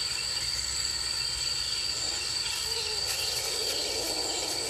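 Crickets chirring steadily in a high, unbroken drone. From about two seconds in, a low, rough sound joins them.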